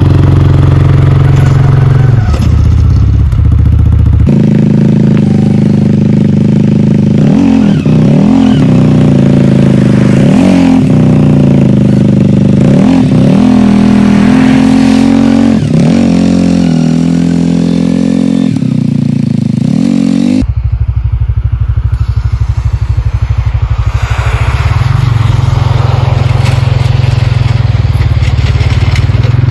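2020 CFMOTO CForce 450L ATV's single-cylinder engine running while the quad pushes snow with its front plow blade. The engine is low and steady at first, then higher, rising and falling again and again as the throttle is worked. About two-thirds of the way in it drops abruptly back to a low steady note.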